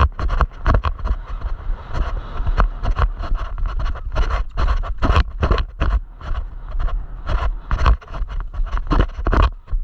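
Horse galloping a barrel pattern, heard from a GoPro on the rider: many uneven thuds from hooves in arena dirt and jostling tack, with wind on the microphone.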